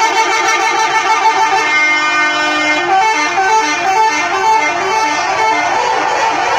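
A bus's telolet horn, a set of multi-tone musical horns, holds a steady chord. From about two seconds in it plays a quick tune of short notes stepping up and down.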